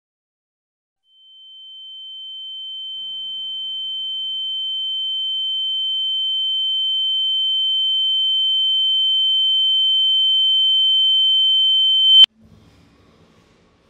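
A single steady high-pitched ringing tone, a film sound effect of ringing ears, swells slowly from silence over about eleven seconds and then cuts off abruptly, leaving only faint low noises.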